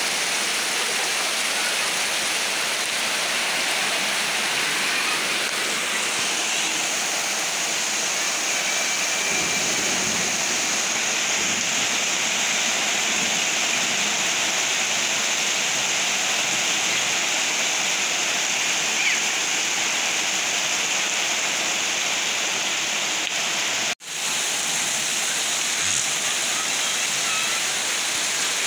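Heavy rain pouring down in a steady hiss, cutting out for an instant near the end.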